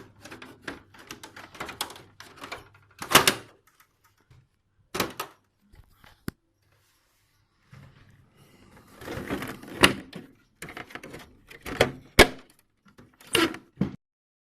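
Handling noises of the air conditioner's plastic front panel and covers: scattered knocks, clicks and scrapes, with a few sharper thunks. It stops suddenly near the end.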